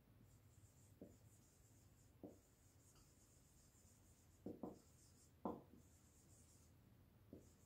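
Faint sound of a marker writing on a whiteboard: scratchy strokes coming and going, with a handful of brief soft taps as the tip lands on the board.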